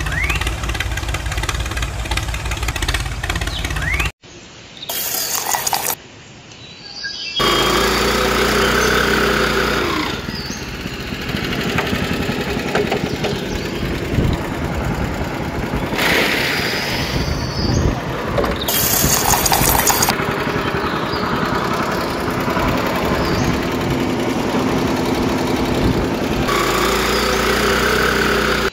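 A motor running steadily with a fast pulsing rhythm, broken by abrupt cuts about four and seven seconds in, then running on with a fuller sound.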